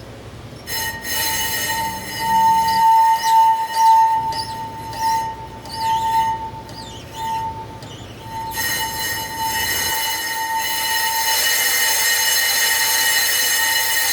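Brake squeal from a 2018 BMW 530i, the noise that began after a brake pad change: a steady high-pitched squeal that starts about a second in and keeps on, pulsing louder and softer for the first several seconds.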